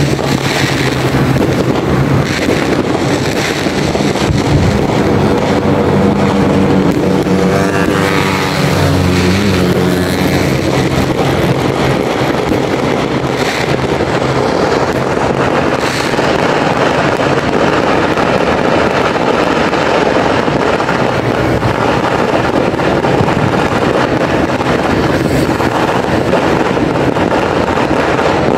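Steady loud rush of road traffic and wind on the microphone, with a vehicle passing about eight seconds in. A few sharp bangs of distant New Year firecrackers come later.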